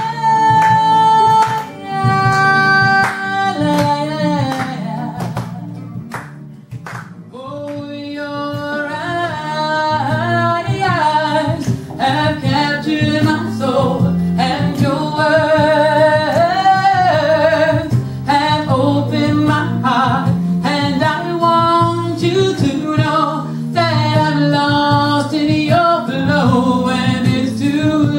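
A woman singing a love song with held notes and long wavering runs over steady instrumental accompaniment. The singing eases off briefly about five seconds in, then returns with sliding, ornamented phrases.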